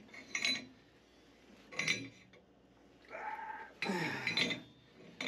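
Metal tools and steel pipe being handled: a few sharp metallic clinks with brief ringing, then a longer, louder rasping stretch a little past halfway.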